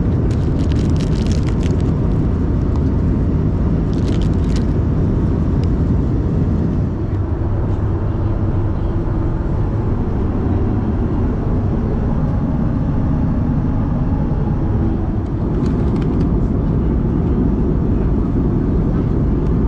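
Steady low rumble of airflow and engine noise inside the cabin of an Airbus A321ceo in flight. A few brief crackles or rattles sound about a second in, around four seconds in, and near the end.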